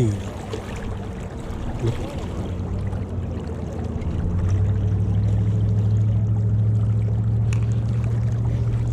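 A steady low motor hum over rushing river water, swelling louder about four seconds in and holding.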